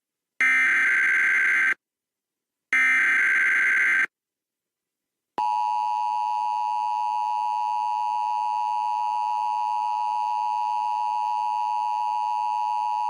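Emergency Alert System test on broadcast TV: two bursts of the shrill, warbling digital header data, each a little over a second long with short gaps of silence between them. About five seconds in comes the steady, unchanging two-tone EAS attention signal.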